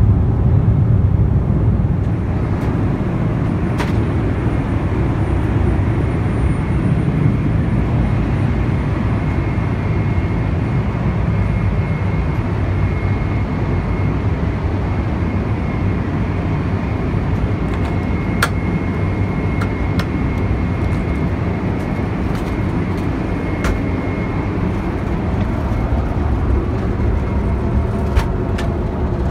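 Steady rumble and hiss of a Boeing 777-300 airliner cabin in flight, from the engines and airflow, with a few faint clicks.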